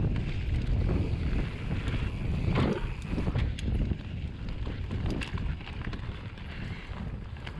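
Mountain bike riding down a dirt singletrack: wind buffeting the camera microphone over the tyres rolling on dirt, with scattered clicks and rattles from the bike and a louder crunch about two and a half seconds in.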